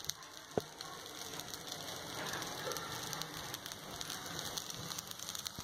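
Appe batter sizzling in the hot, oiled cups of an appe pan: a steady, rain-like crackling hiss as the batter cooks and bubbles. One sharp click about half a second in.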